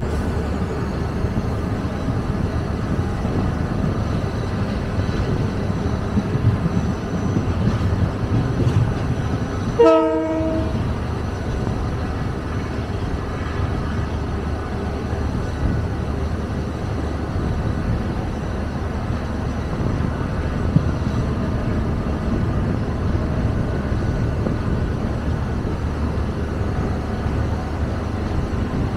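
Train running with a steady low rumble. A short train horn blast, several tones together, sounds about ten seconds in.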